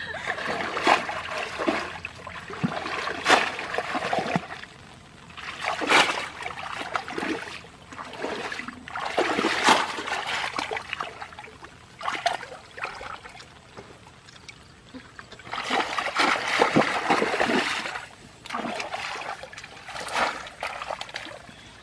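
Shallow muddy water splashing and sloshing as people wade through it and push a woven bamboo fish trap basket into it, in repeated bursts a second or a few seconds long with short quieter gaps and a few sharp slaps.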